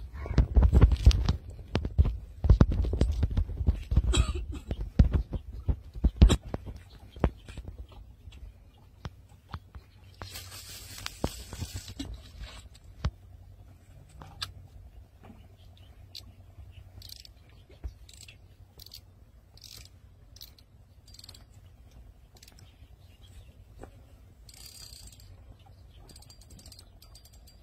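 Rumble and knocks of rod and line handling, with wind on the microphone, for the first few seconds. Then, about ten seconds in, a spinning rod is cast and there is a brief hiss as the line pays out, followed by sparse light clicks from the reel as the rod is held out over the water.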